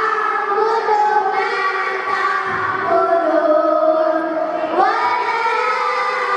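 A group of children singing together in chorus, holding long notes, with a new phrase sliding up about five seconds in.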